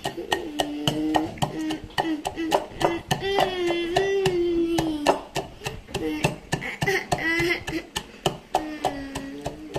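Rapid, even knife chopping on a board, about four strokes a second. A voice sings or hums long held notes over it.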